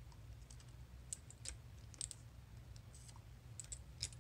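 Irregular light clicks and taps of hard plastic as a water-reservoir brush and a plastic watercolour palette are handled, over a faint steady low hum.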